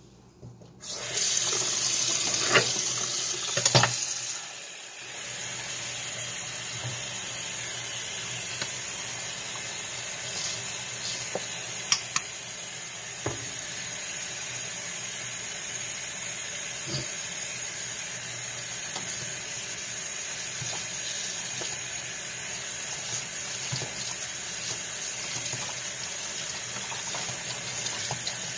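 Kitchen tap turned on about a second in and running steadily into a stainless steel sink while dishes are washed by hand, with a few sharp clinks and knocks of dishes.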